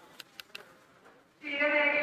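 A few light clicks, then a person's voice starts loudly about one and a half seconds in.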